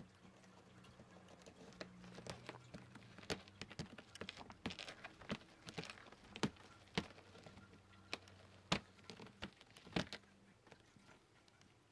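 A cat raking its claws over a rough fibre scratching mat: a quick run of scratchy strokes and sharp clicks, with the loudest strokes in the second half.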